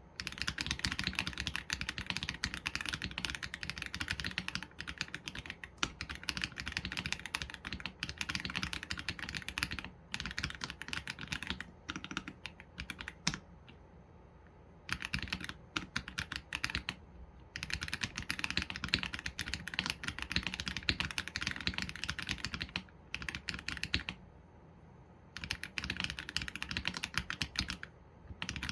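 Mechanical keyboard typing on an AULA F87 Pro with Leobog Graywood V3 linear switches and PBT keycaps: fast, continuous runs of keystrokes broken by short pauses.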